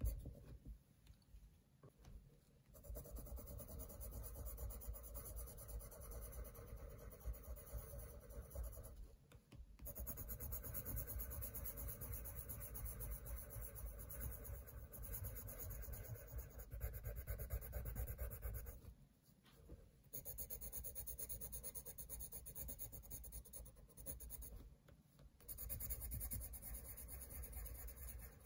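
Coloured pencil shading on paper: a steady, fast scratching of short back-and-forth strokes, stopping briefly a few times.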